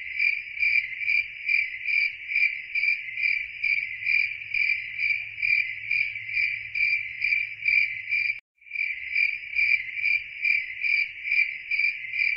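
Cricket-chirping sound effect dubbed over the audio to censor swearing, replacing the speech entirely. It is a steady, evenly pulsed chirping, with a brief clean gap about eight and a half seconds in where the loop restarts.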